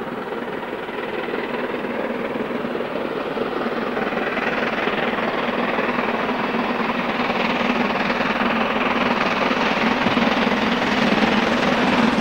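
Steam locomotive working hard at the head of a passenger train, approaching, its sound growing steadily louder as it nears.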